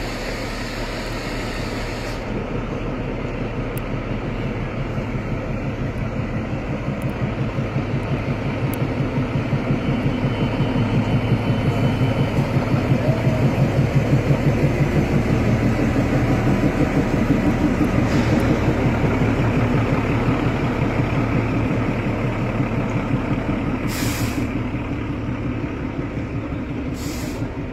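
Narrow-gauge diesel locomotive of the Kalka–Shimla toy train running past with its coaches rolling behind, a steady engine throb that is loudest about halfway through and then eases off. Two short hisses come near the end.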